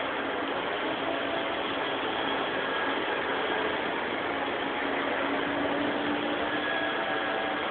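Steady running noise of engine-driven machinery: a dense, even hiss with faint humming tones, unchanging throughout.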